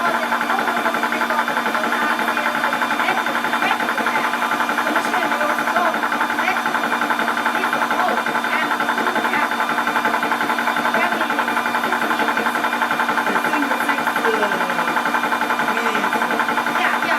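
12-volt portable PCP high-pressure air compressor running steadily under load as it builds pressure, a constant hum with a fast, even mechanical chatter.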